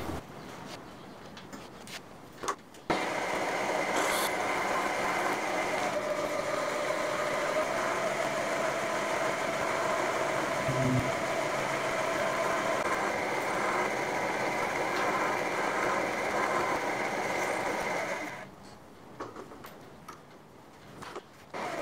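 Mill-drill spindle drilling into a metal bar: it starts about three seconds in and runs steadily with a whine while the drill bit cuts, then stops shortly before the end, followed by a few light clicks as the chuck and bit are handled.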